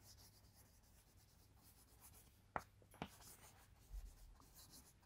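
Faint chalk scratching on a chalkboard as a word is written, with two short sharp chalk taps a little past the middle.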